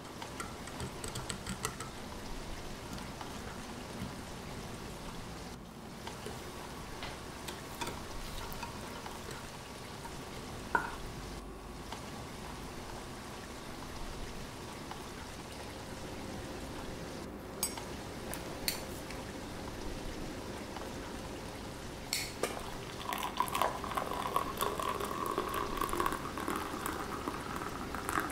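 A wire whisk stirring cocoa and flour, then chocolate cake batter, in a glass baking dish, with occasional clicks of the wires against the glass. In the last few seconds, hot water is poured into a glass mug.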